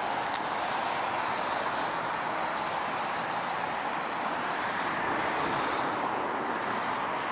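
Steady traffic noise from cars, buses and lorries crossing a road bridge.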